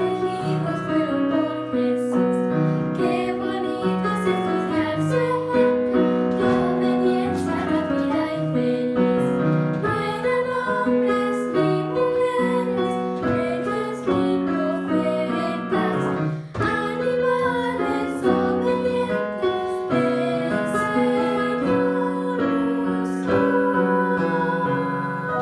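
A Spanish-language children's song sung by voices over a piano accompaniment, the melody moving in steady phrases.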